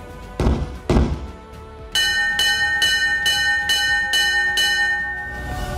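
Two sudden heavy booms like gunfire, half a second apart, near the start. About two seconds in, a bell is struck rapidly seven times, about two strikes a second, each strike ringing on with steady tones, then fades.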